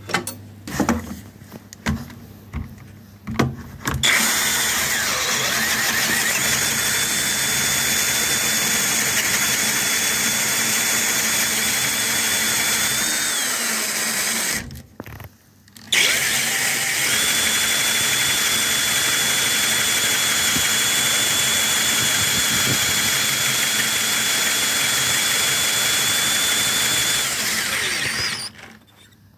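Power drill boring into green wood with a Forstner bit, running in two long stretches with a short stop about halfway; a steady high whine rides over the cutting noise and falls as the drill slows before the stop. The bit is cutting poorly in the green wood and heating it. A few knocks come in the first few seconds before the drilling starts.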